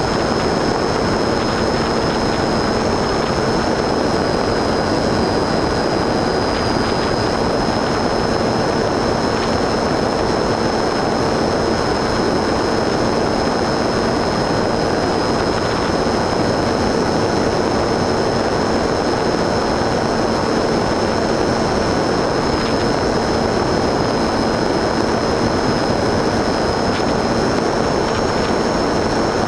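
Motor and propeller of a radio-controlled FPV model aircraft running at a steady cruise, picked up by the onboard camera, with wind rushing over the microphone. A constant high whine sits over the steady rushing noise, with no change in pitch.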